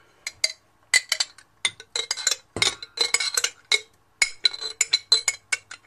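Metal spoon scraping and clinking inside a glass jar of tomato sauce: a quick, irregular run of sharp, ringing clinks.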